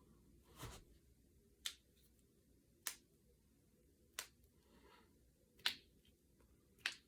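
Finger and knuckle joints cracking: five sharp, brief pops about a second apart, with a softer, duller sound about half a second in.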